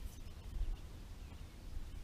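Quiet outdoor background: a low, uneven wind rumble on the microphone, with no distinct event.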